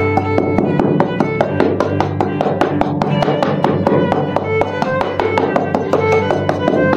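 Background instrumental music: a fast, even run of plucked-string notes over held low tones.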